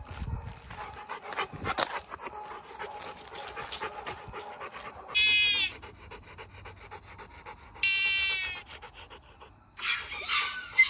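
A dog whining twice: two high, drawn-out cries about two and a half seconds apart, each falling slightly in pitch. A louder, rougher flurry of dog noise comes near the end.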